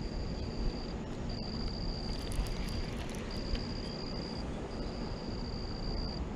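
An insect's high, thin trill, sounding in stretches of about a second and a half with short breaks, over a steady low rushing noise.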